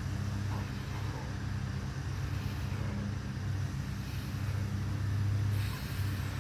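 Lawn mower engine running steadily, a low, even hum.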